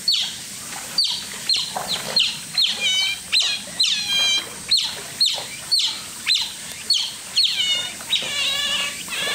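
Oriental short-clawed otters calling: a string of high-pitched chirps, about two a second, each starting high and dropping quickly in pitch. Near the end the calls run together into a longer, wavering call.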